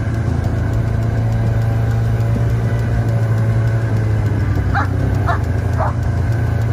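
Snowmobile engine running steadily at an even pitch. A dog barks three times in quick succession about five seconds in.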